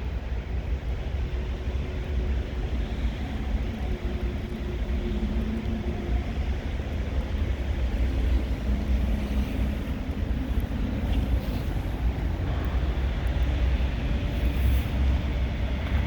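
Wind rumbling and buffeting on the microphone during a snowstorm, with a faint low hum under it for several seconds in the middle.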